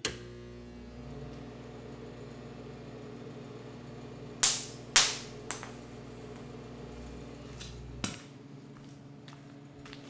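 Arc welder humming steadily while it drives about 200–270 amps through 14-gauge cable joined with a wire nut, a massive overload of the wire. Three sharp cracks come a little past halfway, and the hum cuts off with a click about eight seconds in.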